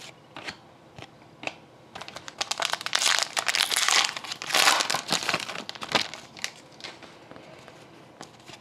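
Foil wrapper of an Upper Deck SP Authentic hockey card pack crinkling loudly as it is handled, from about two seconds in to about six seconds in. Light clicks of cards being handled come before and after.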